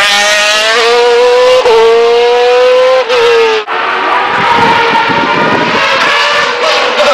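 Single-seater race car accelerating hard out of a hairpin taken in second gear, its engine revving up with upshifts about a second and a half and about three and a half seconds in. It then climbs away and sounds more distant.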